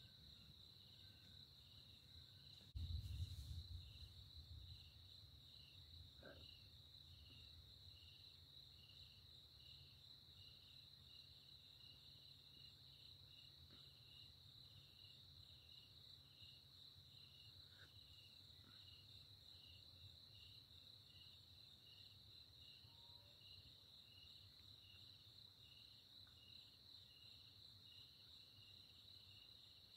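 Night insects trilling steadily: a high, even drone with a softer chirp repeating about once a second, over a faint low rumble. About three seconds in, a sudden louder low rumble swells and dies away over about two seconds.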